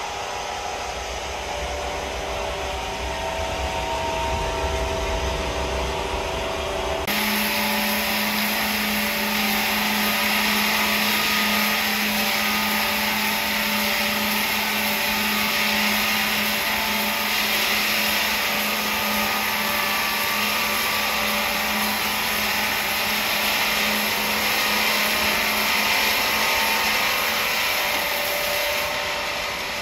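Motor-driven wood saw running steadily with a hum and whir. About seven seconds in the sound switches abruptly to a louder, steadier whir with a single droning hum.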